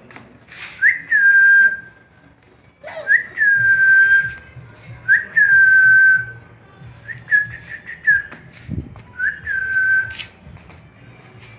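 A person whistling about five drawn-out notes, each a quick upward flick and then a held high tone lasting about a second, with short gaps between them.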